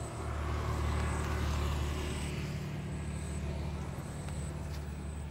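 Low engine hum, probably from a passing motor vehicle, swelling about a second in and then easing off.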